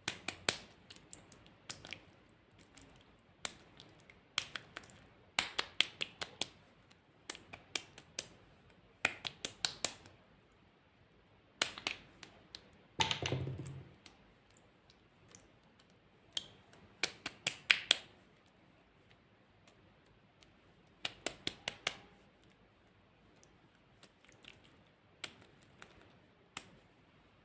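Glossy slime being pressed and poked, giving off quick clusters of sharp clicking pops, with one longer squelch about halfway through.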